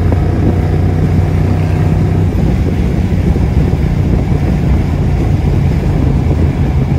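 Fox-body Mustang GT's 5.0 V8 running steadily at highway speed through a BBK off-road H-pipe and Magnaflow cat-back exhaust, a low, even drone heard from inside the car with road noise.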